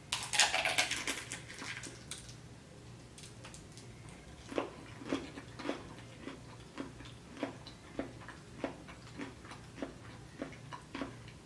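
Close-up mouth sounds of a person eating: a loud noisy burst in the first two seconds, then steady chewing with short wet clicks about one and a half to two times a second.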